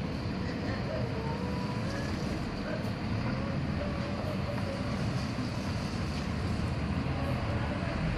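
Steady low rumble of road traffic and running engines, with faint voices calling in the distance.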